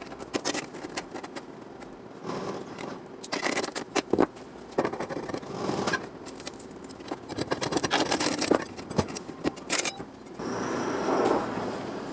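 Irregular scraping with many short clicks, as of hand work on a part. A steadier hiss starts about ten seconds in.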